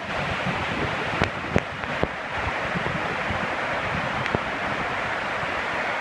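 Minoh Falls in full spate, swollen by typhoon rain, its water crashing down into the plunge pool in a steady, heavy rush. A few brief knocks stand out over it in the first half and once more later.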